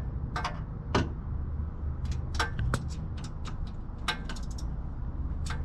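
Sharp metallic clicks and clinks of a wrench working a loose exhaust header bolt on a BMW Z4 tight, coming irregularly a few at a time, over a low steady rumble.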